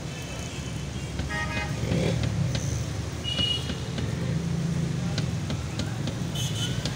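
Steady low hum of street traffic, with a short car horn toot about a second and a half in and a few light clicks.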